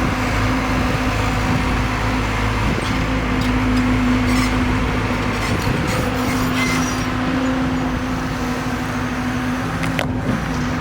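Hyundai R140LC-9 crawler excavator running, its diesel engine and hydraulics giving a loud, steady hum, with a few sharp clicks near the end.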